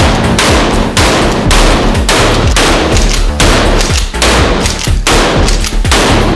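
12-gauge pump shotgun blasts from a Mossberg Maverick 88 in an indoor range, cut together with a music track so that sharp, echoing hits come evenly about twice a second over a steady bass.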